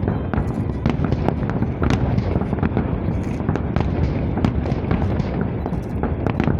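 A fireworks salute going off: a rapid, irregular string of bangs and pops over a continuous low din.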